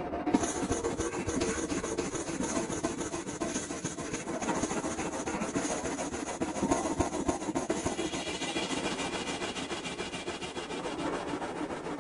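Heavily distorted, garbled digital soundtrack: a dense, crackling noise with a rapid flutter and no clear tune or voice. Its hiss changes character about eight seconds in.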